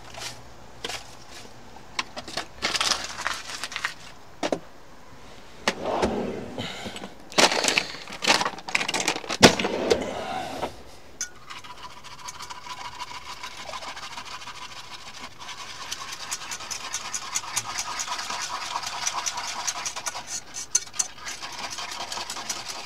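Kitchen utensils and a pan clattering and scraping, then from about halfway a steady, fast, rhythmic scraping of a metal whisk stirring cream sauce in a pan.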